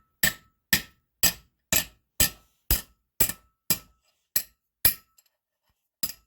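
Nylon hammer striking a flat piece laid over a sheet-metal grease seal, driving the seal into a brake rotor hub. About two sharp knocks a second, each with a short metallic ring, then a brief pause and one more knock near the end.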